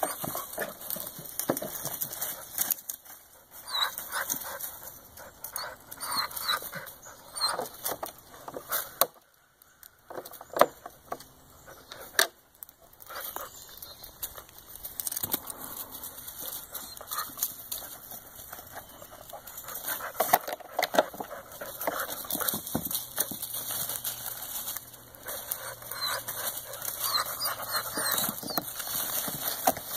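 Two dogs, a West Highland white terrier and a beagle-rottweiler mix, sniffing and scrabbling in dry leaves and bark around a log. Irregular crackles and rustles come in clusters, with a quieter stretch in the middle.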